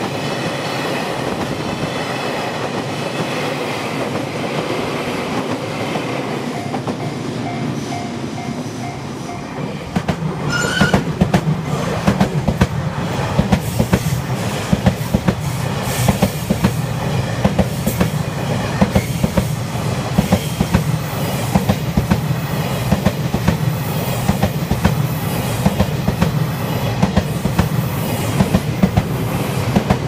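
JR Freight M250 Super Rail Cargo container train passing close by: a steady rumble of wheels on rail, then from about ten seconds in a louder rumble with a fast, rhythmic clickety-clack of wheels over the rail joints.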